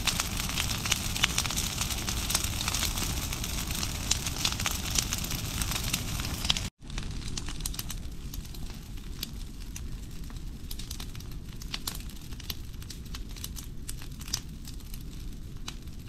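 Brush pile of cut tree branches and pine boughs burning, with dense crackling and popping over a steady rushing noise. There is a brief break about seven seconds in, after which the crackling is a little lighter.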